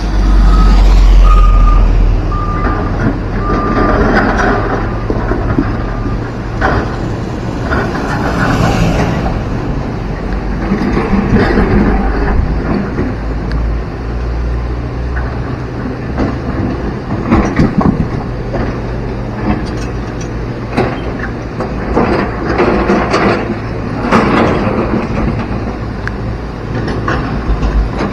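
A heavy diesel dump truck passes close, loudest in the first two seconds, while a warning alarm sounds a string of short beeps for about six seconds. Under it, a fast flood-swollen river rushes and excavator diesels drone. From about ten seconds on, repeated sharp clanks and knocks come as the excavators' buckets work among boulders.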